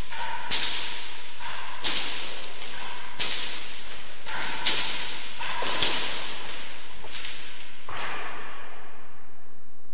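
A rackets rally: sharp cracks of racket on hard ball and ball against the walls, each ringing on in the echoing court, about a dozen in irregular succession until the rally ends about eight seconds in.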